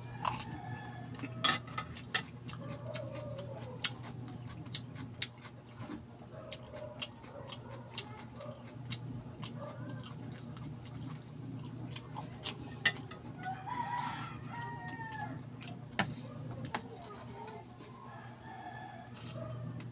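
Chickens clucking in the background, with a rooster crowing about fourteen seconds in, over scattered sharp clicks of a spoon and mouth eating balut and a steady low hum.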